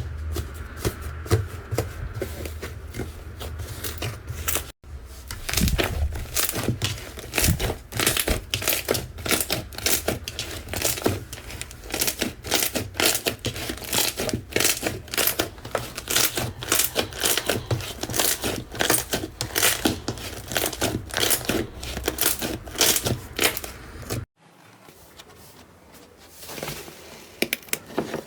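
Slime being squeezed and worked by hand, a dense, irregular run of small crackling and popping clicks. The sound breaks off sharply about five seconds in, and again near the end, where it turns much quieter.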